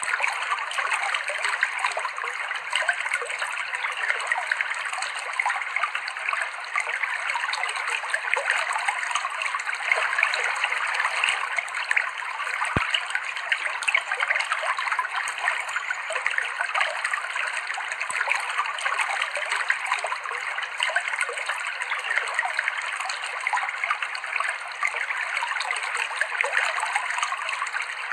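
River water flowing over rocks: a steady, fine trickling and splashing with little deep rumble.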